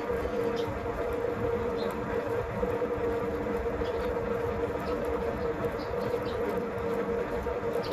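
Metal lathe running steadily: a constant hum with a steady whining tone over a rough rumble, with a few faint light ticks.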